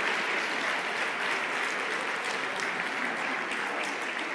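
Audience applauding, a steady patter of many hands clapping that slowly dies down toward the end.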